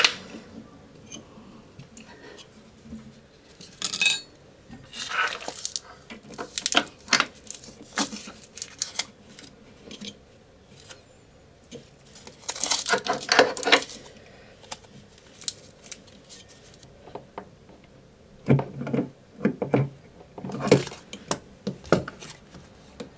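Metal plumbing fittings and hand tools being handled, clinking and scraping in scattered short bursts with pauses between.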